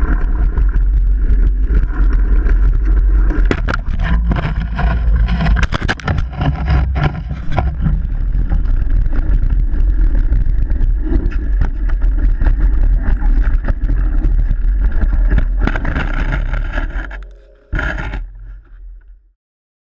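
Mountain bike descending a dirt trail, heard from a camera on the rider: heavy wind rumble on the microphone, with tyres crunching over gravel and the bike rattling and knocking over bumps. Near the end it drops away, with one sharp knock, and fades out.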